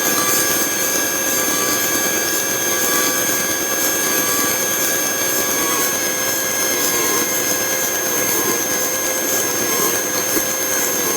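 Steady engine and propeller noise inside the cockpit of a Cessna 150 with its four-cylinder Continental O-200, running evenly at low power on the landing rollout. Several faint steady whines run through it.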